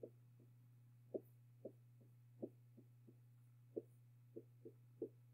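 Faint soft taps of a stylus on a tablet screen while handwriting, about ten at irregular intervals, over a steady low hum.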